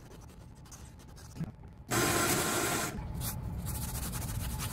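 A hand rubbing the fuzzy, freshly milled surface of painted MDF with a small red rubber pad, then wiping it with a paper towel: a dry scratchy rubbing. About two seconds in comes a loud rush of noise lasting about a second.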